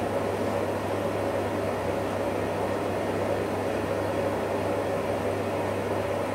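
Electrolux EWF 16589 W front-loading washing machine running in its rinse phase: a steady low hum under an even rushing noise.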